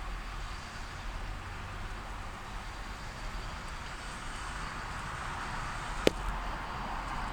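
Lincoln Town Car pulling away and driving, heard from inside the cabin: steady engine and road noise. A single sharp click comes about six seconds in.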